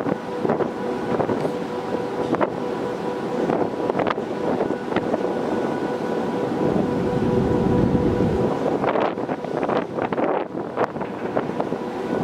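Steady machinery hum of docked cruise ships, with a faint held tone, under wind buffeting the microphone. The wind rumble is strongest about six to eight seconds in, and there are a few light clicks.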